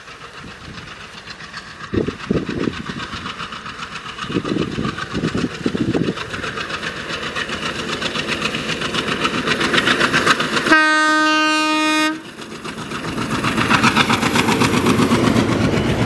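WDM-3D diesel locomotive accelerating with a passenger train, its engine chugging and growing louder as it comes up and passes close by. A little past the middle it sounds one horn blast of just over a second.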